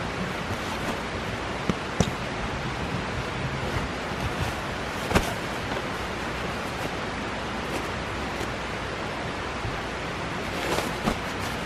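Steady wind-like rushing noise, with a few short sharp clicks as the stuffed sleeping bag and other camping gear are handled.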